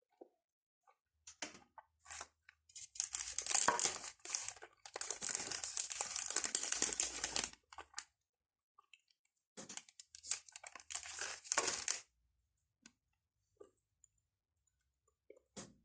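A Cadbury chocolate bar wrapper being torn open and crinkled, in two long stretches of dense crackling with a pause between, the second shorter.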